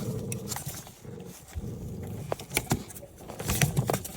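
A socket wrench turning a 10 mm bolt on a camshaft position sensor, breaking it loose: irregular sharp metallic clicks, more of them near the end, over a low rough rasping.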